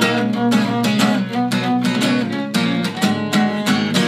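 Steel-string acoustic guitar strummed in a steady rhythm, with an acoustic bass guitar and a bowed violin playing along: an instrumental passage of an acoustic punk-rock song.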